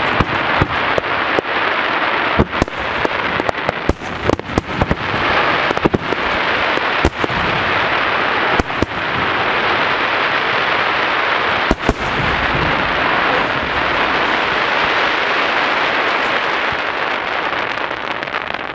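Aerial fireworks shells bursting: many sharp booms through the first twelve seconds over a dense, continuous crackling hiss. The hiss carries on after the last boom and slowly fades.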